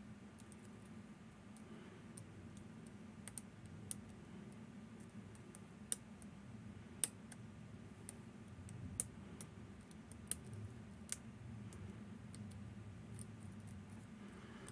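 Picking tools working inside a Fichet 787 eight-lever safe lock: faint, irregular metallic clicks and ticks as the levers are lifted under tension, with a few sharper clicks in the middle. A faint steady low hum runs underneath.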